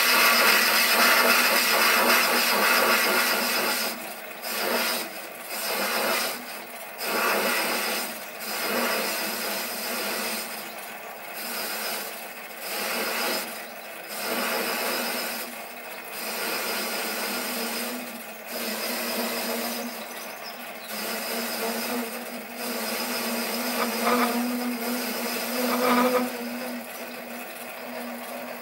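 Sieg SC3 mini lathe turning cast iron with a facing tool, a scratchy cutting noise over the lathe's steady motor hum. The cutting runs without a break for the first few seconds, then comes and goes in short spells every second or two as the tool is fed in.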